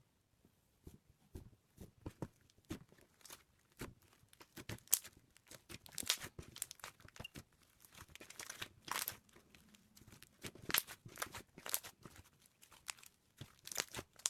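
Slime clay being worked by hand, giving a run of irregular crackles and small pops.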